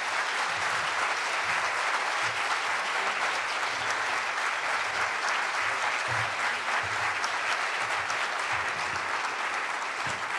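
Audience applauding steadily, a large room full of hands clapping.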